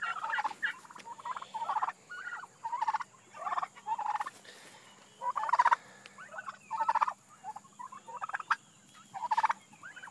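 Domestic turkey toms gobbling, a string of about ten short gobbles at irregular intervals, roughly one a second.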